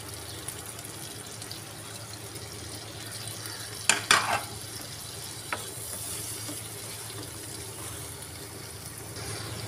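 Onions, green chillies and tomatoes frying in mustard oil in a non-stick frying pan, with a steady sizzle. About four seconds in, a wooden spoon knocks twice against the pan as stirring begins, then clicks once more lightly a moment later.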